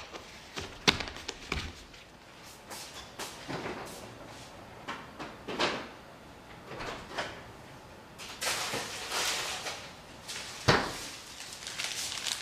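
Household handling sounds: a few sharp knocks and a door bumping shut, then a couple of seconds of plastic-bag rustling, and one loud knock near the end.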